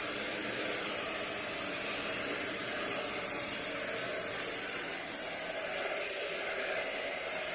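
Euro Pro 2-in-1 vacuum, a small model with no roller brush, running steadily on a hard floor: a constant rush of airflow over a steady motor whine.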